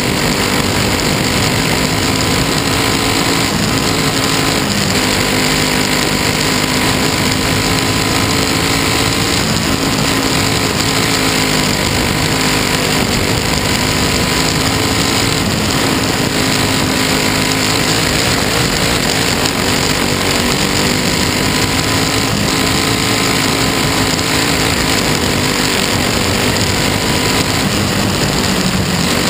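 Dirt-track race car engine running hard at speed, heard from inside the cockpit, its pitch wavering up and down through the laps over a steady rushing noise.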